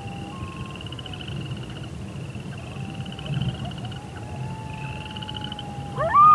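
Wolves howling: several long, drawn-out howls overlap, each gliding up and then held, and near the end a much louder howl sweeps up sharply and holds steady. A pulsing trill repeats in the background.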